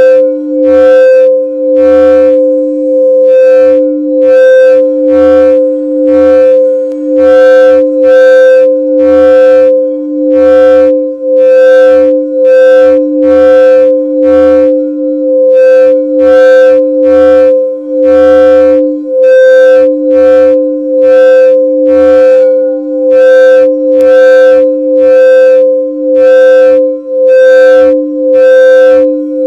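Crystal quartz singing bowls ringing with two steady, sustained tones, one low and one higher, overlaid by a pulsing shimmer of overtones a little more than once a second.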